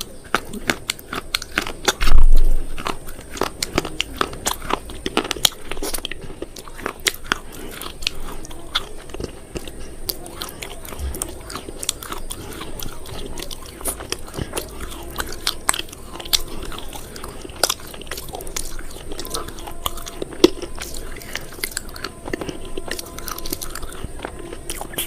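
Close-up crunching and chewing of something hard and crisp: a fast, uneven run of sharp crunches, with one louder bite about two seconds in.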